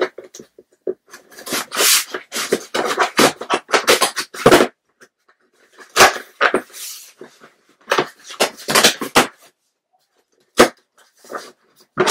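Shipping package being cut open with scissors and unpacked by hand: close, irregular rustling and crinkling of the packaging, with a short pause about two-thirds of the way through.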